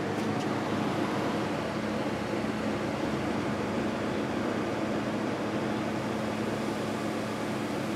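Steady machine hum with fan-like rushing noise and a constant low tone.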